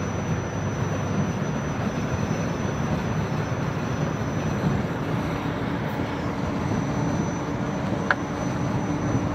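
Steady road and engine noise inside a moving minibus, with a faint hum joining about halfway and a single sharp click about eight seconds in.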